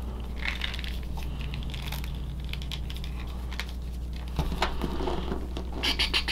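Faint clicks and rustles of a plastic action figure and its accessory being handled, with a few sharper clicks about four and a half seconds and six seconds in, over a low steady hum.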